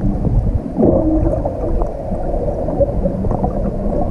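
Muffled underwater sound picked up by a camera held below the surface in shallow water: a dense low rumble with steady faint humming tones and a few small clicks.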